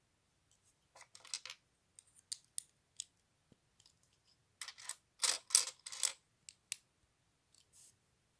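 Small plastic LEGO pieces clicking and rattling as they are handled and fitted together: scattered sharp clicks, with two short bursts of clattering, the louder one about five seconds in.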